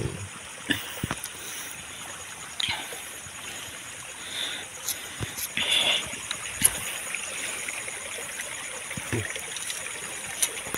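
Small river running steadily, with scattered sharp clicks and rustles of handling close by.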